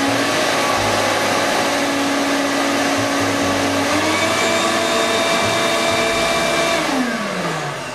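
Shop vac running as a blower, pushing air through a short PVC pipe: a steady motor whine over an air rush, its pitch stepping up slightly about halfway through. About a second before the end it is switched off, and the whine winds down.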